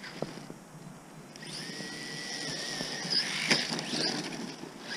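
Electric motor of a radio-controlled monster truck whining as the truck drives on snow, the whine building about a second and a half in, with a single knock about three and a half seconds in.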